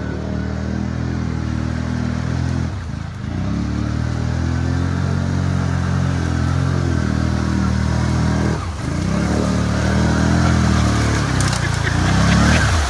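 Can-Am Outlander XMR 650 ATV's V-twin engine working under load through deep swamp water, its revs dipping and climbing again several times as the rider works the throttle, with water churning around the machine. It grows louder near the end as the quad comes close.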